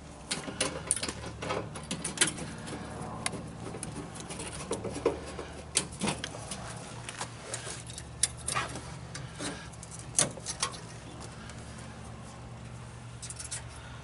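Irregular sharp metal clicks and clinks of hands working at the ring of an electric meter, fitting a lock to it, over a steady low hum.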